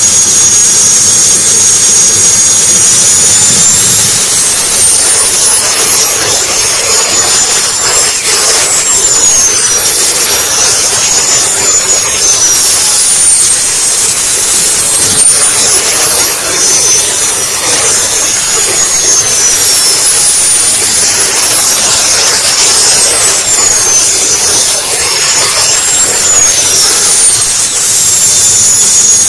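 RC model jet's turbine engine running loud and close, its high whine sliding up and down in pitch again and again as the throttle is worked while the model taxis.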